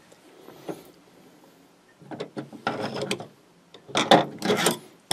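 Screwdrivers with plastic handles and steel shafts clicking and clattering against one another and the tabletop as they are picked up and set down in a row, in two bursts about two and four seconds in.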